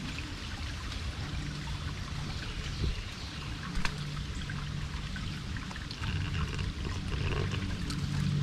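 Water trickling and flowing steadily, like a small stream, with many small splashing ticks. Soft, low, held background music tones sit underneath and grow stronger near the end.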